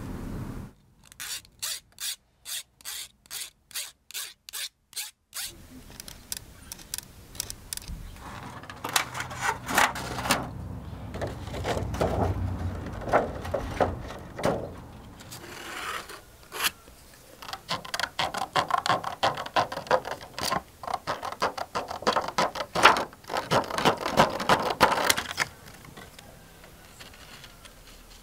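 Thin clear plastic being handled, crackling, rubbing and scraping. In the first few seconds there is a run of regular clicks, about two a second.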